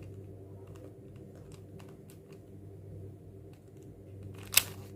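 A plastic 4x4 Rubik's cube being turned by hand: faint, irregular clicks of its layers, with one sharper, louder click near the end, over a low steady hum.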